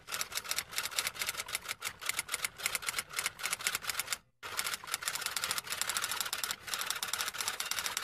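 Typewriter keys clacking in rapid, uneven runs of strikes, with a brief pause about four seconds in.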